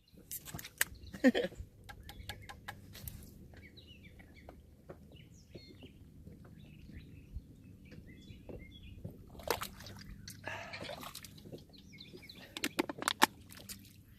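Faint birdsong: a run of short, high chirps through the middle of the stretch, over a low outdoor hush. Scattered sharp clicks and knocks come near the start, again about nine seconds in, and near the end.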